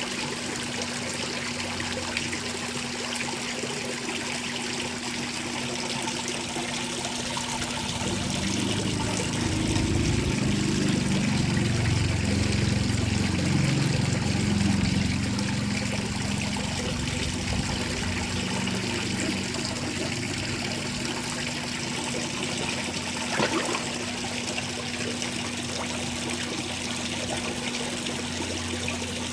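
Light rain falling with water trickling, a steady even hiss. A low rumble swells up about a quarter of the way in and fades away several seconds later, and a single click comes near the end.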